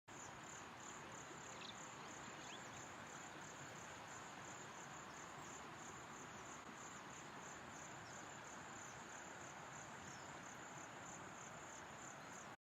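Faint insect chirping in a steady, even rhythm of about three high pulses a second, over a constant background hiss.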